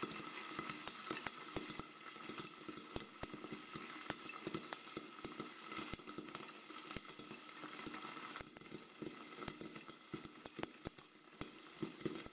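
Popcorn kernels popping in hot oil in a pan under a glass lid: a quick, irregular run of pops over a steady sizzle.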